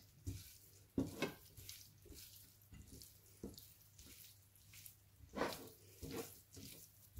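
Raw sheep's liver cubes, wet with vinegar and spices, being tossed and mixed by hand on a plate: soft wet squelches and slaps at irregular intervals.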